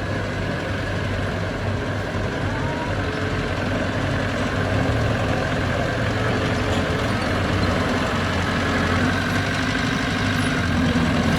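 Heavy construction machinery's diesel engine running steadily with a low hum, growing a little louder about four seconds in.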